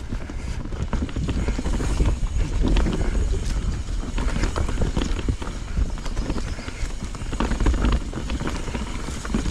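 Knolly mountain bike riding fast down a dirt singletrack: a steady rumble of the tyres on the trail, with frequent clicks and rattles from the bike over the bumps.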